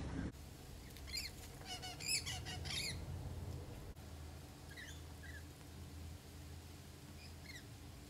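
A flock of rainbow lorikeets screeching shrilly, a dense burst of overlapping calls about a second in that lasts about two seconds, then a few scattered short chirps, over a low steady hum.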